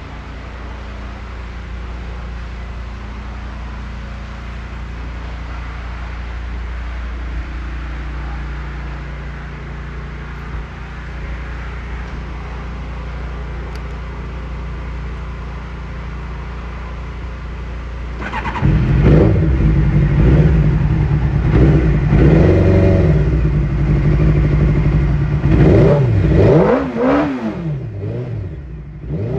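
1996 Honda CBR600's inline-four engine idling steadily, then revved hard from a little past halfway, with several quick throttle blips near the end, the pitch rising and falling with each.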